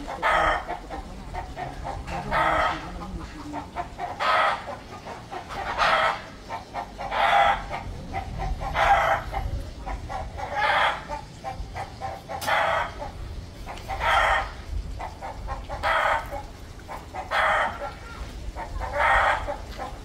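Fowl calling over and over, one short call about every one and a half to two seconds, over a low rumble.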